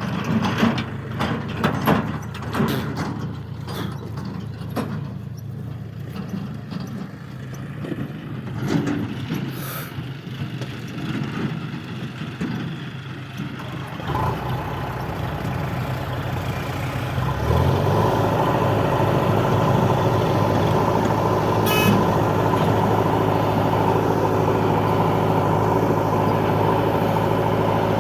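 Diesel engine of a JCB 3DX backhoe loader at work loading mud. Through the first half it runs low under irregular knocks and clatter. About halfway the engine note changes, and from about two-thirds in it runs loud and steady under load, with a brief high squeal a little past three-quarters in.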